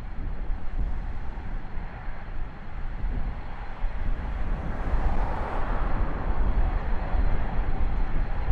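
Wind buffeting the microphone in a gusty low rumble, over the rushing noise of an Embraer Praetor 600's twin turbofan engines as it lands, which swells about five seconds in.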